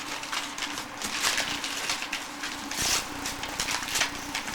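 Wrapping paper rustling and tearing, with several short sharp rips as a present is unwrapped.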